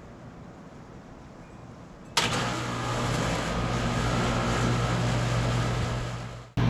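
2.5-ton Bryant Legacy Line central air conditioner condenser starting up: about two seconds in, the Copeland scroll compressor and condenser fan kick on suddenly and run with a steady low hum and fan noise. It is a very loud, very rough start.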